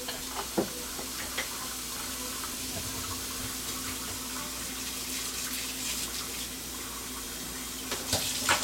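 Steady rush of running water, as from a kitchen tap into a sink, with a few light clinks of dishes near the start and near the end.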